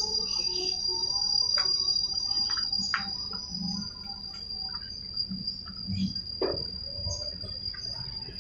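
An insect, likely a cricket, trilling steadily on one high pitch throughout, with scattered light clicks and knocks over it.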